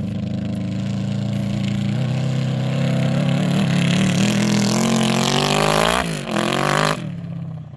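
Custom quad bike powered by a Yamaha YZF1000R Thunderace inline-four motorcycle engine, accelerating hard with its engine note climbing for several seconds. The pitch drops sharply at a gear change about six seconds in, climbs again briefly, and then eases off near the end.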